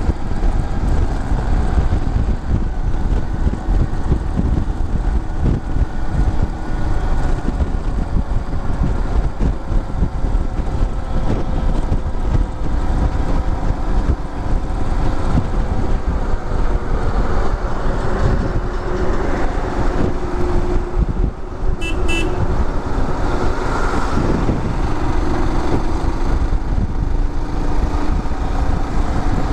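Motorcycle riding on a busy highway: engine running steadily under heavy wind rumble on the microphone, with surrounding traffic and a vehicle horn sounding briefly in the second half.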